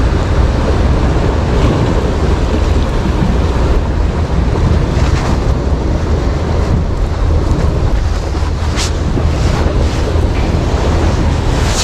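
Wind buffeting the microphone over sea waves: a loud, steady low rumble with the sea washing and a few short splashes.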